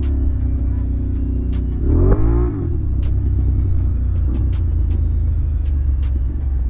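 Can-Am ATV engine running at low speed, with a steady low rumble. About two seconds in, an engine revs up and back down briefly.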